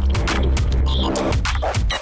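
Electronic music, with a deep bass note held for about the first second and a half under choppy high sounds.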